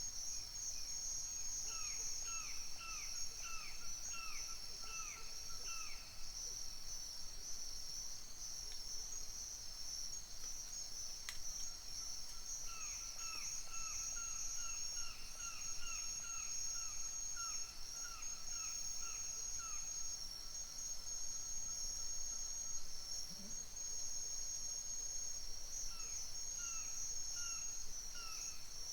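Dawn forest soundscape: a steady, high-pitched chorus of crickets and other insects, pulsing rapidly. Over it, an owl gives runs of short whistled notes, about two a second, in three bouts.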